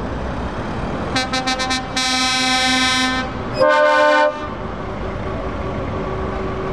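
Lorry horns sounding over the steady running of truck engines. A rapid run of about five short toots is followed by a long blast of about a second, then a shorter, higher-pitched blast.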